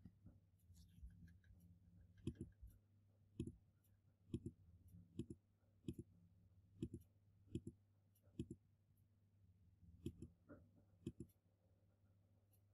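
Computer mouse clicking: about ten short double clicks, roughly one a second, as answers are circled on screen.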